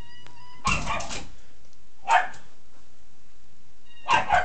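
Dog barking in three short bouts: one under a second in, a brief one about two seconds in, and another starting near the end.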